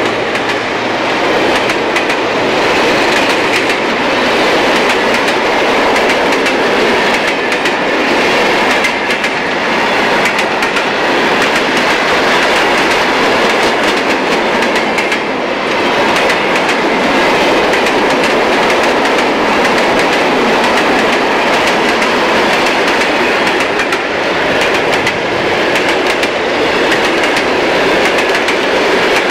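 Freight train wagons rolling past, steel wheels clattering over rail joints in a steady clickety-clack under a continuous rolling rumble. The wagons are container wagons and hopper wagons.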